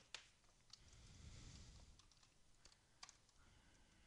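Near silence with a few faint, sharp computer mouse clicks, scattered at irregular intervals, with a pair of clicks about three seconds in.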